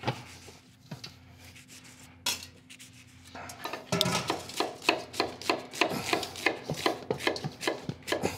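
Knife chopping onion on a wooden cutting board. A few scattered knocks come first, then from about halfway a steady run of knocks about three a second.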